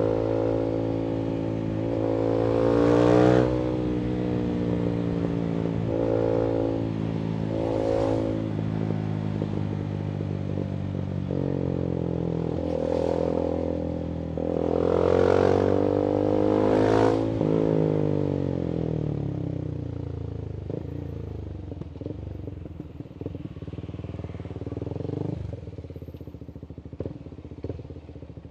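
Voge 300AC single-cylinder engine through a free-flowing full-system exhaust, running on a fuel-richer reflash: it revs up and drops back several times as the bike accelerates through the gears. Then the pitch falls as it rolls off and slows, with scattered crackles from the exhaust on the overrun.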